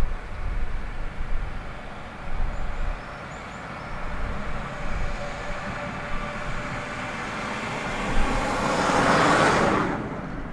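Rumble of a passing vehicle that builds to its loudest near the end and then drops away suddenly, over wind on the microphone, with a few faint high bird chirps a few seconds in.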